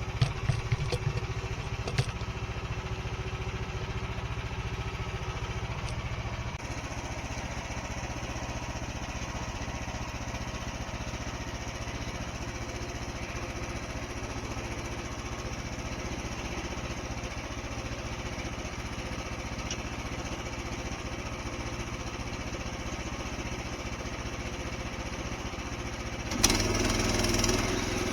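Small gas engine of a Frontier OS31 portable band sawmill running steadily, with a few sharp knocks in the first couple of seconds. The sound gets louder and rougher near the end.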